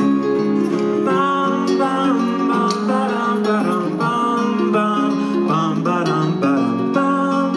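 Live acoustic band playing an instrumental break, with plucked strings and guitar to the fore.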